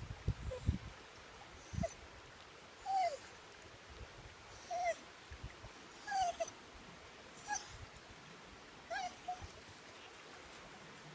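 A dog whining: about six short, high whimpers, each falling in pitch, roughly one every second and a half. A few low knocks come in the first second.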